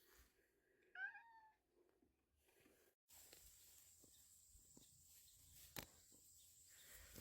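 A cat meows once, a short call that bends in pitch, about a second in; after that only faint background hiss with a thin high whine and one small click.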